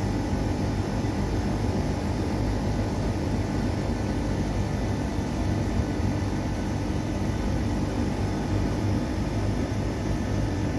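Samsung split air conditioner's outdoor unit running, its compressor and condenser fan making a steady, unbroken hum.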